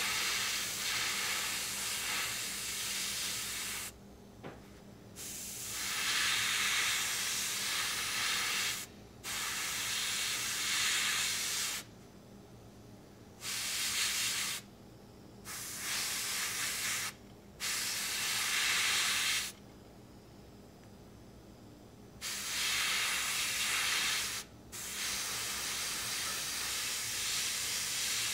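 PS290 airbrush spraying metallic paint in repeated bursts of hissing air as the trigger is pressed and released, about eight sprays of one to four seconds each with short pauses between.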